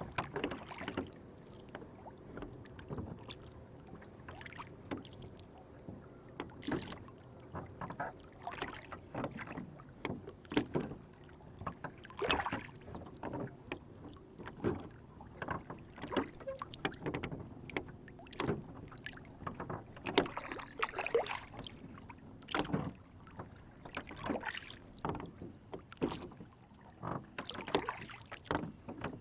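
Lake water sloshing and slapping against a rowboat's hull in irregular splashes and small knocks, over a low steady background.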